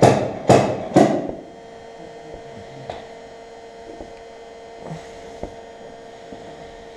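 Three sharp knocks about half a second apart, made by a metal rod knocking on the inside of a heated plastic car bumper to push a dent back out. After about a second the knocks stop and a steady electrical hum remains.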